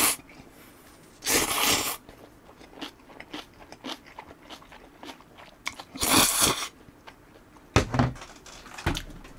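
A person eating hot ramen: two loud slurps of noodles, about a second in and again around six seconds, with chewing and crunching of kimchi between and a few sharp clicks near the end.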